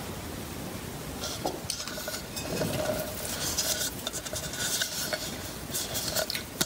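Handling noise from a thin plastic cup turned over in the hands: scraping and rubbing of fingers on the plastic, with small scratchy clicks now and then.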